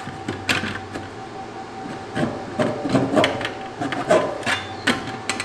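Thin stainless steel smoker parts, a curved heat baffle and a drip tray, being set into the steel firebox: irregular scraping and several light metal knocks as they are fitted into place.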